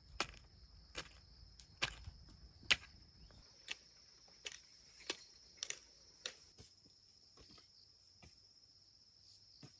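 A steady, high-pitched insect drone of crickets chirring, with sharp knocks about once a second that are louder than the drone.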